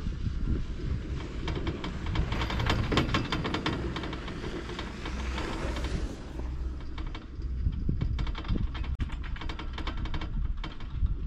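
Poma double chairlift running: a rapid, irregular clatter of clicks over a steady low rumble, the clicking thinning out about two-thirds of the way through.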